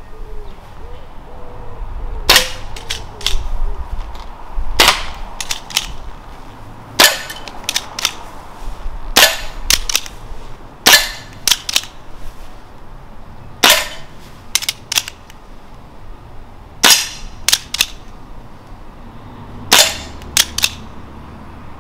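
Diana Bandit PCP air pistol firing eight single shots at an irregular pace of one every two to three seconds, each a sharp crack. Most shots are followed within a second by one or two fainter clicks.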